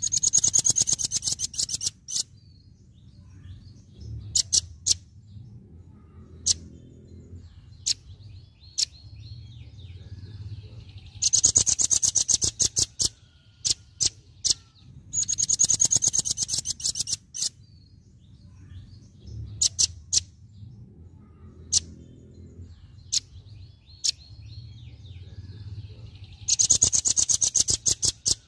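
A velvet-fronted nuthatch giving its rapid 'tembakan' song: four bursts of very fast, high-pitched notes, each lasting about two seconds, with single sharp notes between them. The same pattern of bursts and notes comes round again about every 15 seconds.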